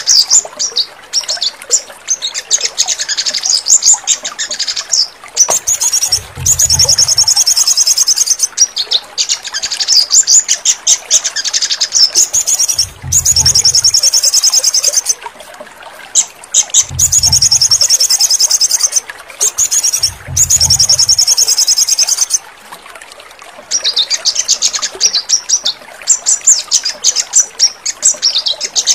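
Sogon bird song for training caged birds: fast, high chattering trills in bouts a few seconds long with short breaks between them. Four brief low deep sounds come in along the way.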